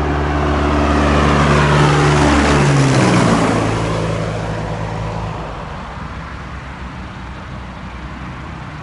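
Propeller aircraft flying past, its engine tone dropping in pitch as it goes by about three seconds in, then fading away.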